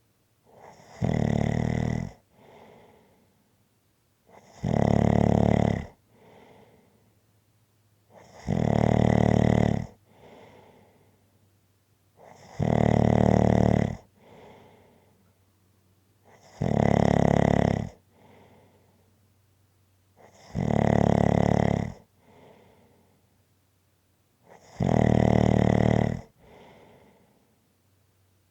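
Snoring in a steady rhythm: seven loud snores, one about every four seconds, each lasting about a second, with a much softer breath between them.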